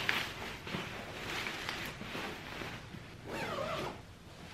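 Fabric rustling and swishing in uneven strokes as a striped linen cushion cover is handled and pulled over a pillow insert.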